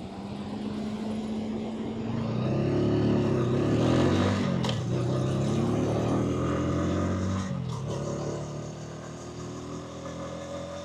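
A Hansom Bike 125cc motorcycle engine accelerating: its note starts low, climbs and wavers over a few seconds to its loudest, holds, then eases off and quietens after about seven and a half seconds, over a steady hiss of road and wind noise.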